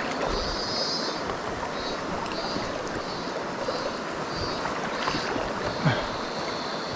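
Steady rush of river water. Over it, a faint high whirring pulses about one and a half times a second, then holds steady near the end.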